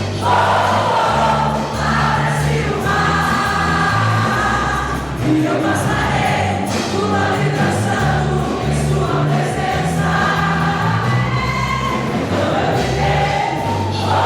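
A group of voices singing a song together over instrumental accompaniment, with sustained bass notes changing every second or so.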